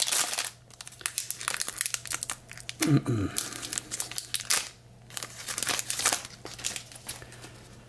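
Wrapper of a 2021 Bowman hobby card pack crinkling and tearing as it is ripped open, in quick irregular crackles.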